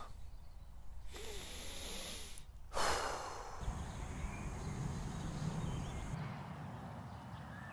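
Wind rumbling and hissing on the microphone in an open field, with a short hissing puff about three seconds in.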